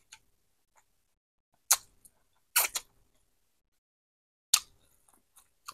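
Close-up mouth sounds of chewing corn on the cob: a few separate sharp, wet clicks about a second apart, with quiet in between.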